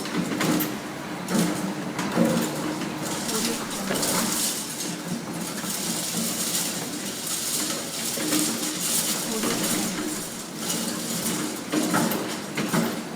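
Construction site ambience: frequent metallic clanks and knocks of tools and materials over a continuous din, with workers' voices mixed in.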